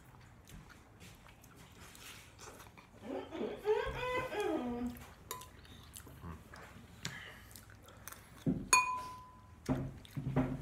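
Metal spoon clinking and scraping against a ceramic soup bowl, with one sharp clink near the end that rings on for about a second. A short pitched vocal sound comes about three seconds in.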